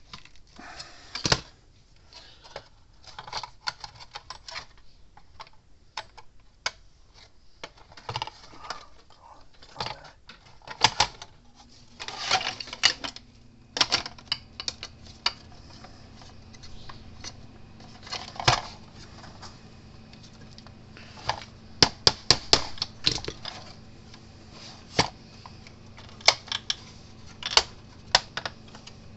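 Irregular clicks and clatter of small tools and hardware being handled, with a quick run of clicks a little past the middle. A low steady hum starts about eleven seconds in.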